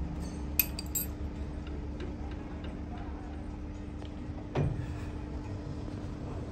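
Chuck key clinking against a metal three-jaw lathe chuck as its jaws are tightened on a ball-stud workpiece: two sharp metallic clicks about half a second and a second in, then a few faint ticks. A dull thump comes about four and a half seconds in, over a steady low hum.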